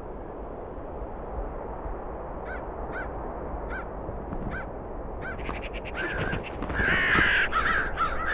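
Scavenging birds at a carcass calling over a steady low rush. A few short single calls, about half a second apart, are followed from about five and a half seconds by a louder, denser run of harsh, rasping caws.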